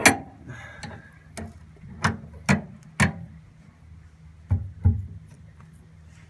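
Hand tools knocking and tapping on the outboard's steering cable fitting: about seven sharp knocks at uneven intervals, the first one loudest.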